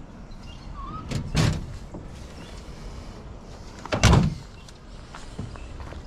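Two dull thuds, one about a second and a half in and a louder one about four seconds in.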